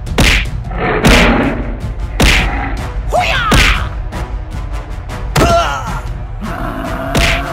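Animated fight sound effects: heavy thuds and whacks landing about every one to two seconds over background music, with two short animal cries that glide up and down in pitch, about three and five and a half seconds in.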